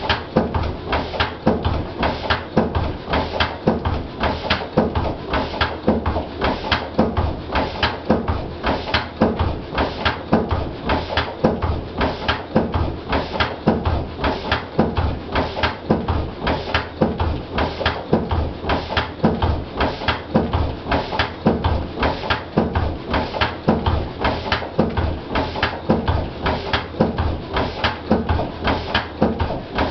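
Lister CS stationary diesel engine running steadily, its exhaust beating out an even, regular rhythm of firing strokes.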